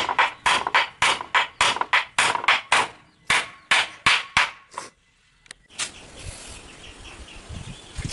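Hammer driving a nail into wood: a quick run of about seventeen ringing strikes, three to four a second, over the first five seconds until the nail sits flush. After a short pause comes one more knock, then softer shuffling noise.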